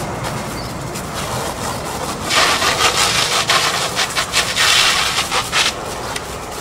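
A harsh, rasping rubbing noise that starts about two seconds in and runs for about three seconds, broken by short scratchy pulses.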